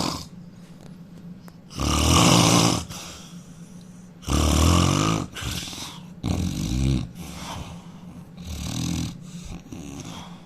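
A man snoring loudly: four rasping, rattling snores about two seconds apart, the first two the loudest.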